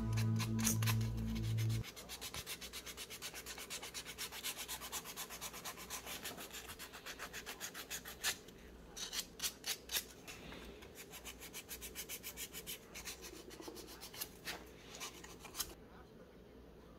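Sandpaper rubbed by hand in quick back-and-forth strokes over a small styrene plastic part, about five strokes a second, thinning to scattered strokes and stopping near the end. Background music cuts off about two seconds in.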